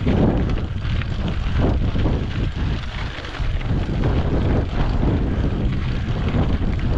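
Wind buffeting the microphone of a camera on a mountain bike being ridden, with steady rumble and many small knocks and rattles from the bike.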